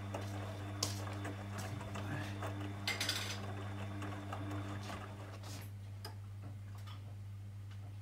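Bosch VarioPerfect front-loading washing machine on a Cottons 40 wash: a steady motor hum as the water-filled drum turns the laundry, with scattered light clicks and clinks and a small cluster of them about three seconds in. About five and a half seconds in the tumbling stops and only the hum and a few faint ticks remain.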